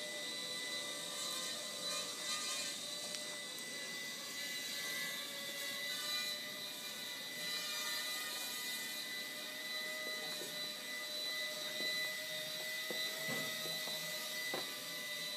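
Walkera Ladybird V2 micro quadcopter's small motors and propellers whining steadily, with a few light knocks or clicks in the second half.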